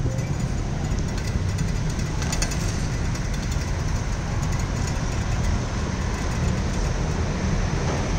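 Steady rumble of wind on the microphone with continuous fine rattling from a rented bicycle being ridden over paving. It cuts off suddenly just after the end.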